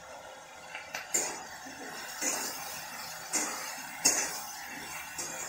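Spatula knocking and scraping against a metal kadai while stirring frying potatoes: four sharp clinks about a second apart over a steady frying hiss.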